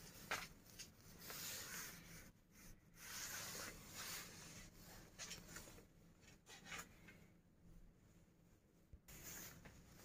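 Faint, irregular rustling and rubbing over quiet room tone: handling noise from a hand-held phone as it is moved about.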